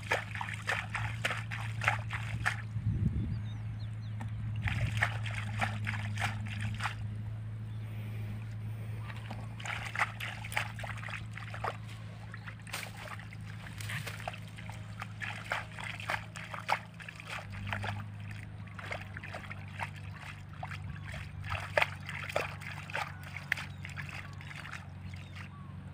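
Hands sloshing and splashing in shallow muddy water in short bouts, as a man gropes in the mud for fish by hand. A steady low hum runs underneath.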